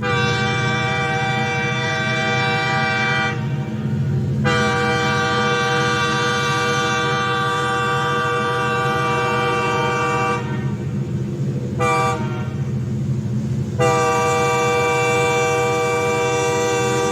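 Locomotive air horn sounding a multi-note chord in the grade-crossing pattern: two long blasts, one short toot, then a final long blast that is still sounding at the end. A steady low rumble from the train runs underneath.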